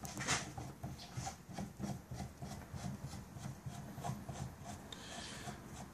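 Gas regulator of a Japanese Type 11 light machine gun being screwed by hand into its gas tube: a run of soft, uneven metal scrapes and ticks as the threads turn.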